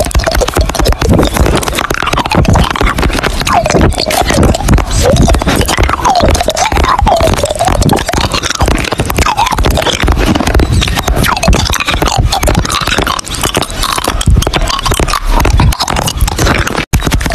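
Background music with a dense, steady beat and a gliding melody line. It drops out for an instant near the end.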